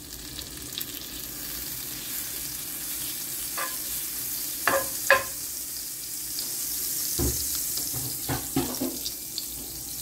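Butter and pork lard melting and sizzling in a nonstick frying pan, a steady sizzle that builds slightly as the fat heats, with a few short clicks about halfway through and again near the end.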